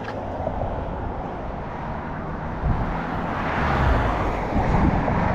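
Road traffic on the street beside the sidewalk, a passing car's tyre and engine noise swelling about three to four seconds in.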